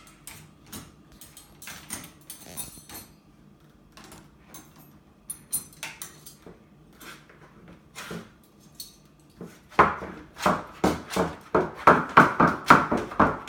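Dishes and cutlery clinking and clattering as they are unloaded from a dishwasher and put away, in scattered separate clicks. From about ten seconds in, a louder run of evenly paced knocks follows, about three a second.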